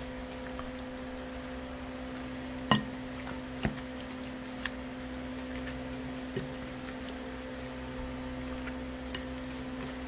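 Spatula stirring a thick, wet chicken dip in a glass bowl: soft squishing, with a few sharp knocks of the spatula against the glass, the loudest a little under three seconds in. A steady low hum runs underneath.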